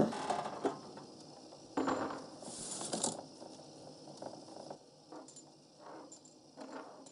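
Coins clattering into a counter's pass-through tray, with the loudest clatter about two seconds in and a few smaller clinks and clicks after.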